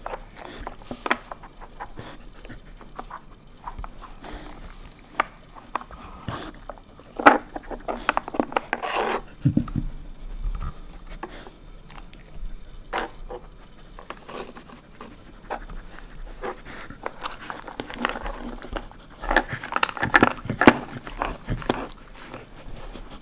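Samoyed panting as it noses a plastic dog puzzle toy, the toy's sliding pieces clicking and knocking now and then, busiest about a third of the way in and again near the end.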